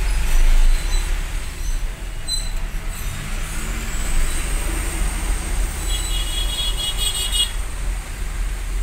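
A large vehicle's engine running with a steady low rumble, heard from inside its cab in slow street traffic. A brief high-pitched tone sounds about six seconds in.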